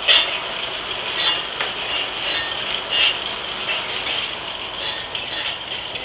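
Antique steam-powered circular sawmill's machinery running between cuts: a steady mechanical clatter with irregular sharper clanks about once a second.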